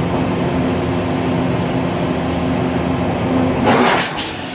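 Okuma MA60HB horizontal machining center running with a steady mechanical hum holding several low tones. Near the end comes a short rush of air and a couple of sharp clunks as the automatic tool changer's shutter opens and a tool is swapped into the spindle.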